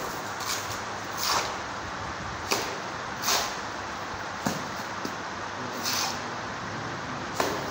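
Steel mason's trowel scooping and scraping cement mortar: short scrapes and sharp clicks of trowel against mortar and brick, about one a second, over a steady background noise.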